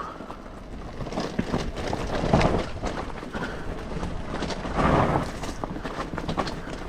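Yamaha YZ125 two-stroke dirt bike ridden off-road: the engine noise swells twice, with many short knocks and clatter as the bike goes over rough ground.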